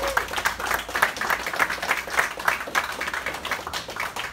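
A small group of people applauding, many quick overlapping hand claps.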